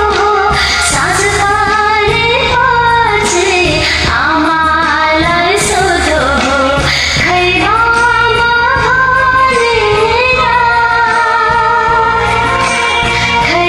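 A voice singing a Nepali song over a karaoke backing track with a steady beat.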